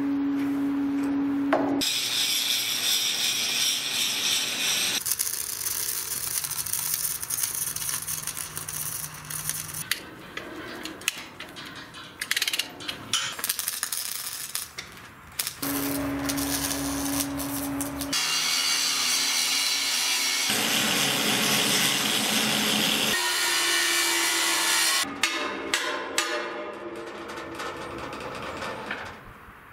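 Steel fabrication noise cut together in short takes: a power tool grinding on steel, and the crackling sputter of a welder at work, with the sound changing abruptly every few seconds.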